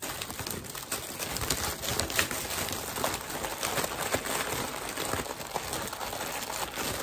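Plastic packaging crinkling and rustling as hands dig through it and pull out a bagged item.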